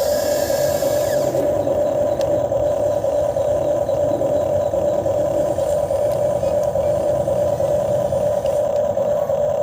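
Electric motors of an RC excavator running with a steady, even drone, a higher hiss fading out about a second in.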